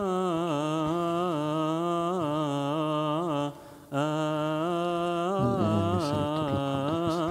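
A man's voice chanting a drawn-out, melismatic Coptic Alleluia: long held notes with small ornamented turns, and a brief breath pause about three and a half seconds in. Around five and a half seconds in, a second, lower voice briefly joins.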